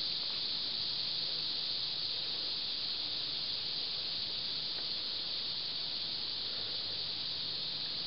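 Steady high-pitched outdoor hiss with no breaks or changes, and a faint low hum beneath it.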